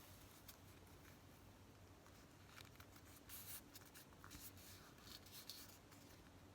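Near silence with a few faint, brief rustles of paper being handled and positioned.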